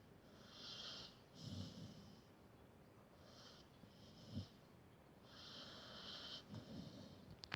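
Dog snoring while asleep: quiet, whistling wheezes on each breath, about one every second or two, broken by three short, low snorts.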